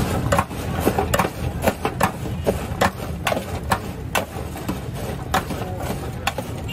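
A stainless-steel cup scooping and tossing seasoned fries in a steel tray. Its rim clinks and scrapes against the tray about twice a second, over a steady low background rumble.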